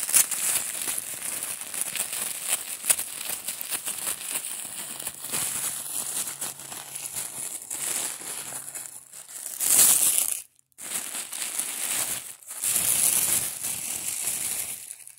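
Tissue paper crinkling and rustling as hands unfold it, with louder bursts of crinkling about ten and thirteen seconds in.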